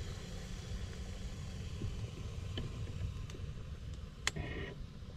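Wind buffeting the microphone, an uneven low rumble over a steady faint hiss, with a few light clicks and a short rattle about four seconds in.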